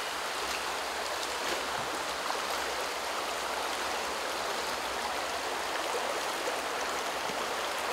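Shallow stream flowing, a steady even rush of water.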